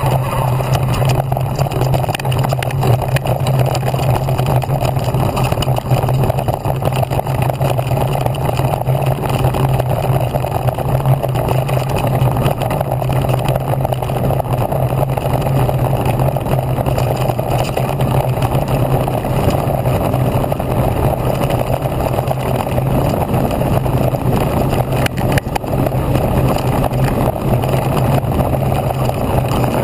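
Ride noise of an electric mountain bike rolling over a grassy field track, picked up by a handlebar-mounted action camera: a steady low drone under constant rumble and rattle from the tyres and frame, with small scattered knocks from bumps.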